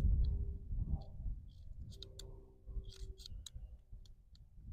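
Light metallic clicks of a Ruger New Model Single Six .22 revolver being reloaded: .22 cartridges are pushed into the cylinder through the loading gate, and the cylinder is turned chamber by chamber. The clicks come irregularly, a few at a time.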